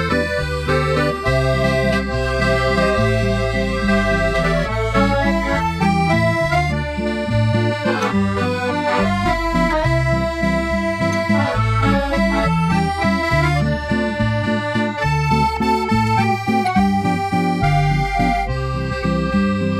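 Background music: a melody of held notes over a steady, rhythmic bass line.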